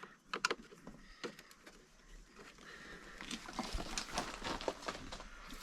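Faint scattered clicks and light rattles from handling a screwdriver and screws on the generator's housing, growing busier in the second half.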